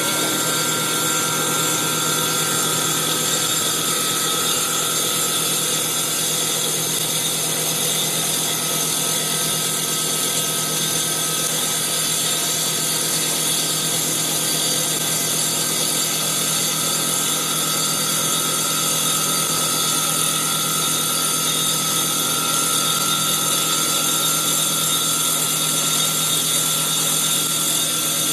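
Circular saw blade of a CNC wood lathe, its spindle at 3000 rpm, taking a 3 mm-deep cut along a turning wooden baseball bat blank. The sound is a steady, high-pitched whine and hiss that does not change.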